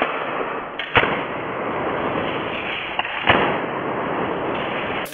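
Fast-draw revolvers firing rice-loaded blank rounds: two sharp shots, one about a second in and one just past three seconds, each just after a lighter click, over steady hiss.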